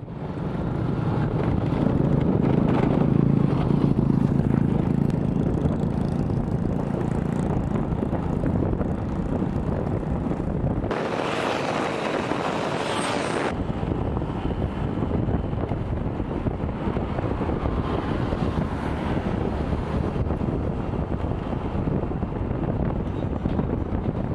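Wind rushing over the microphone of a moving vehicle, with the steady hum of its engine. About eleven seconds in, a louder hiss lasts two to three seconds.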